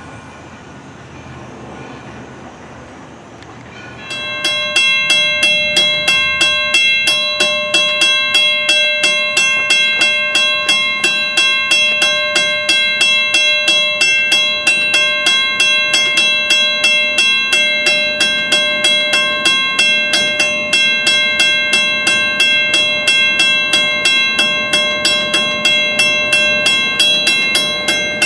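Railroad grade-crossing warning bell starting suddenly about four seconds in and then ringing steadily and fast, about three strokes a second, over a fixed set of ringing tones: the crossing signal activating for an approaching train. Before it there is only a faint low hum.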